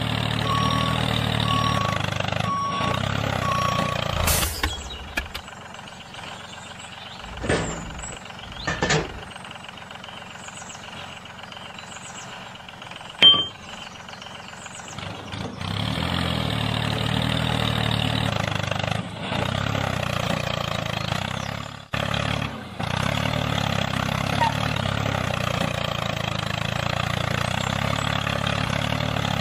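Tractor engine sound running steadily, with a reversing alarm beeping evenly over the first four seconds or so. It falls away for about ten seconds, with a few clicks and knocks, then comes back and runs steadily again.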